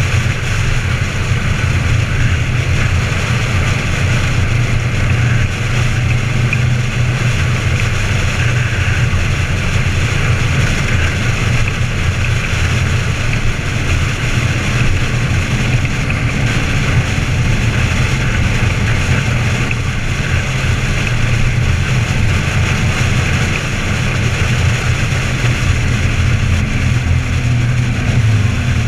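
2012 Harley-Davidson Ultra Limited's 103 cubic inch V-twin, with an Andrews 57H cam and true dual exhausts, running steadily at cruising speed, mixed with wind noise on the microphone.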